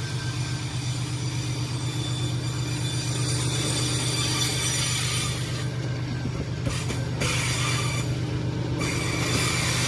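GE ES43 diesel-electric locomotive's engine running with a steady deep rumble, with a thin high whine above it throughout.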